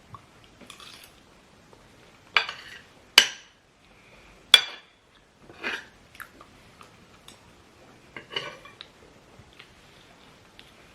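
Cutlery clinking and scraping against plates, with a few sharp clinks that ring briefly, the loudest about three and four and a half seconds in.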